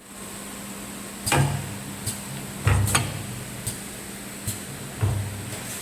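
CNC wood lathe running with a steady hum and a high whine, broken by about seven irregular knocks and thuds.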